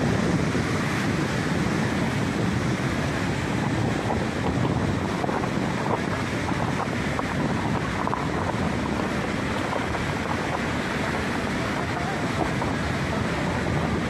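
Steady rush of the Karatag River's whitewater rapids pouring over boulders.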